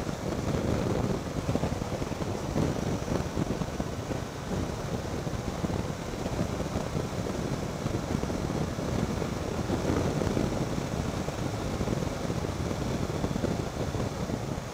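Wind rushing over the microphone while riding a Triumph Tiger 800 XCx motorcycle, with its 800 cc three-cylinder engine running underneath.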